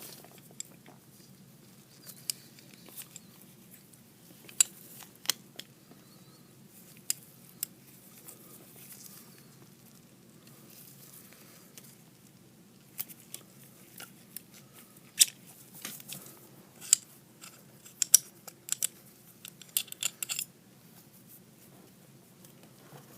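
Scattered small metallic clicks and scrapes, in an irregular bunch later on, as a 1911 pistol slide is handled and its recoil spring and barrel are worked out by hand.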